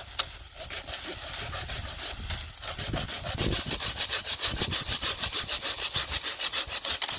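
Saw cutting through firewood, a rapid, even run of strokes that grows louder.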